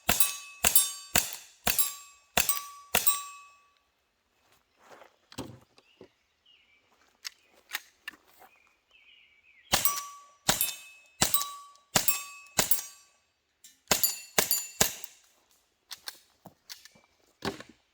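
Strings of quick shots from CO2-powered less-lethal pistols, each with a bright metallic ring that hangs on briefly. About six shots come fast at the start, then a pause with only faint clicks, then two more quick strings and a single shot near the end.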